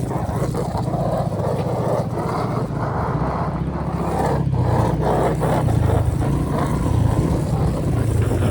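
Engine of a small off-road vehicle running up close, steady throughout and a little louder in the second half.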